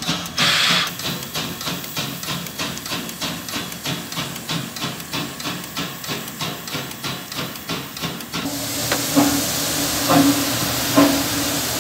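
Polish TKt48-class steam tank locomotive standing in steam: a steady knocking about three times a second. About eight and a half seconds in this gives way to a steady hiss of steam with a heavier beat roughly once a second.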